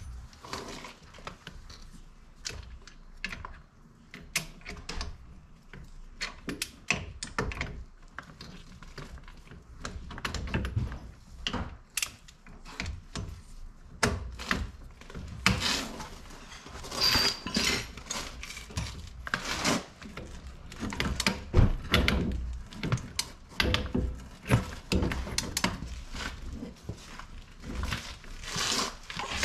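Irregular metal clicks and clinks of a wrench working on the bolts that hold a front wheel bearing hub to the steering knuckle, as they are tightened to torque. The clicks come thicker and louder in the second half.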